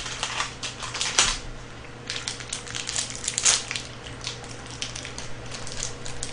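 Crisp crunching of a chocolate-coated KitKat wafer being bitten and chewed close to the microphone, mixed with the crackle of its plastic wrapper: a run of irregular sharp crackles.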